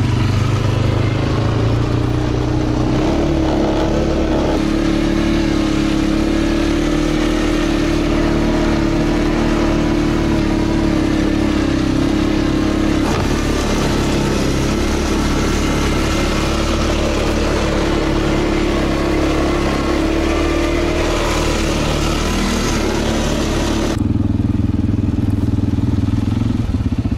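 Quad bike (ATV) engine running steadily as it is ridden through deep snow, heard from the rider's seat. Near the end the sound turns duller and lower.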